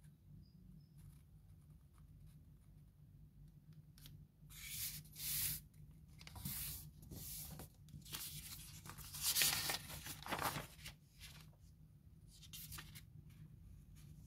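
A sheet of paper being folded and creased by hand: rustling and crinkling in irregular bursts, loudest from about four to eleven seconds in, as fingers press and rub along the fold.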